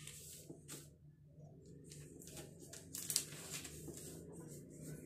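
A paper sewing pattern rustling and crinkling in a series of short rustles as it is smoothed flat and pinned onto dress fabric, over a faint low steady hum.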